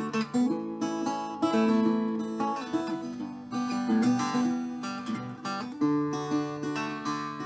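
Acoustic guitar strumming and picking chords between sung verses.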